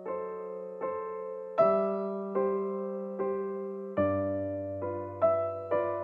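Background piano music: slow sustained chords struck about every second and left to ring, with a low bass note coming in about four seconds in.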